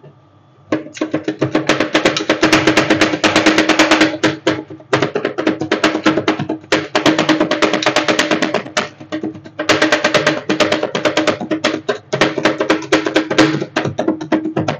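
Rapid clicking and clattering of two metal spatulas chopping ice cream on a rolled-ice-cream cold plate, in long fast runs broken by a few short pauses.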